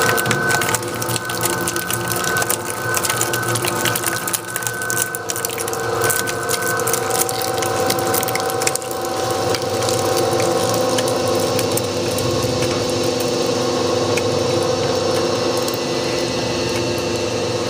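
BLIK BB-230 industrial shredder's rotating cutters chewing through playing cards with dense crackling and clicking. About nine seconds in the crackle thins out and the machine runs on empty with a steady mechanical hum.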